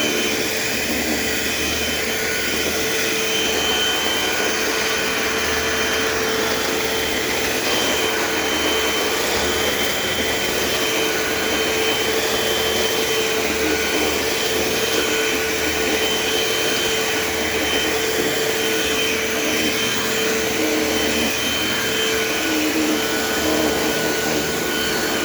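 Eureka AirSpeed AS1101 upright vacuum cleaner running steadily as it is pushed over the floor, its motor giving a constant whine over the rush of air.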